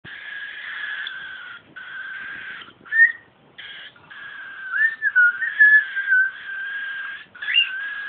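Four-week-old cockatiel chicks calling: a run of long repeated calls, each about a second with short breaks, with a few brief rising whistles mixed in.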